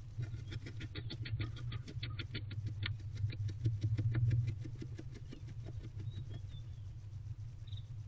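Barn owl scratching at her feathers: a fast, even run of rasping strokes, roughly eight a second, strongest in the first half and fading after about five seconds, over a steady low hum.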